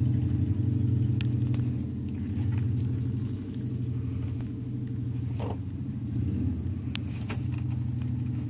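A steady low motor hum, with a few brief clicks over it.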